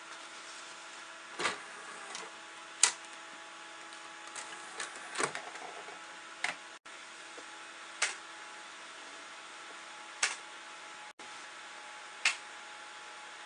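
Computer on an open test bench running: a steady whir and hum from its fans, with about seven sharp clicks and knocks scattered through, one to two seconds apart.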